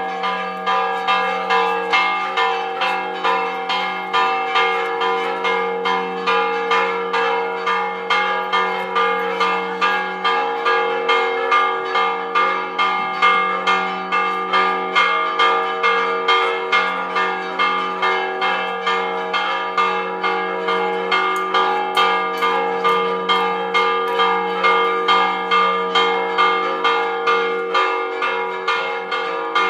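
Church tower bells ringing a repique, the fast festive Spanish peal: an even run of quick strokes, with several bell tones ringing on over one another.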